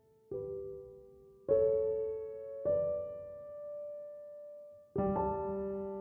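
Background music on solo piano: slow, soft notes and chords, each struck about once a second or less and left to ring out.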